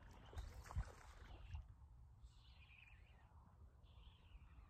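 Near silence outdoors: a faint low rumble with a few soft knocks in the first second and a half, then two faint high sounds that fall in pitch.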